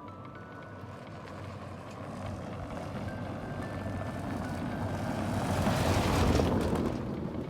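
A road vehicle approaching and passing close by: its engine and tyre noise grow steadily louder, peak about six seconds in, then fade.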